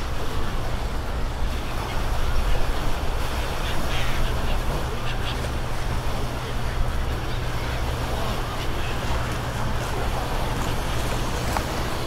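A large flock of seagulls calling in short, harsh cries over a crowd's chatter, with a steady low rumble underneath.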